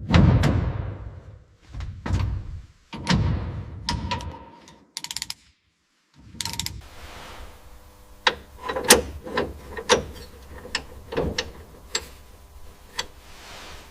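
Metal workshop sounds: heavy metal clunks that ring briefly, a quick ratchet-like rattle about five seconds in, then a run of sharp metallic clicks and taps over a low steady hum.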